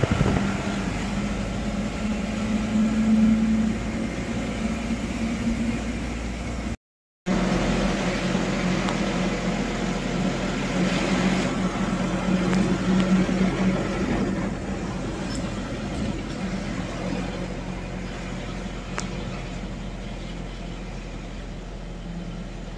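A moving vehicle's engine humming steadily over tyre and road noise as it drives along a hill road. The sound cuts out briefly about seven seconds in, then carries on and slowly fades.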